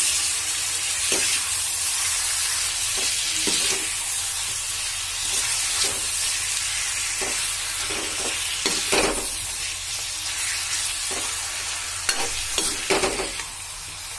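Chicken offal and onions sizzling in hot oil in a wok, with a steady hiss. A metal spatula stirs them, scraping against the pan every second or two and more often near the end.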